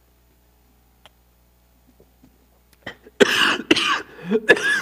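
A man coughing into his hand: a run of four or five short, loud coughs starting about three seconds in, after a near-quiet pause with a faint click.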